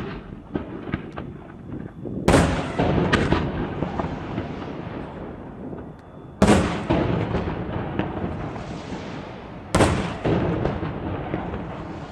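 Aerial fireworks shells bursting: three loud booms about three to four seconds apart. Each is followed by a long tail of many small crackling pops and a rumble that dies away.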